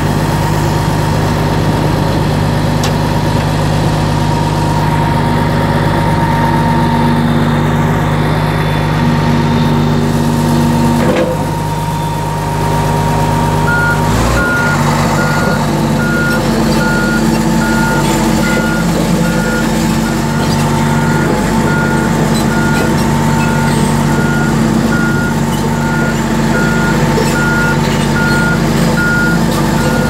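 Komatsu D85EX-15 bulldozer's diesel engine running steadily, heard from the cab. About halfway through, the backup alarm starts a high, evenly repeated beeping, the sign that the dozer is set to travel in reverse.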